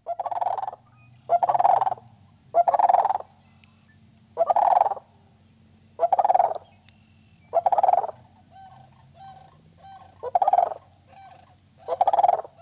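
A farmyard fowl calling: eight loud, fast-fluttering calls about a second and a half apart, with softer short notes between them in the later part, over a faint low steady hum.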